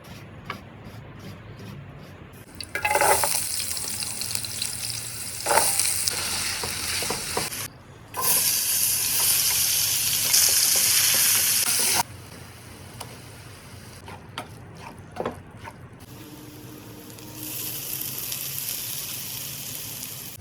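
Chicken liver frying in a hot pan, sizzling loudly in three stretches that start and stop abruptly, with a few sharp clicks in between.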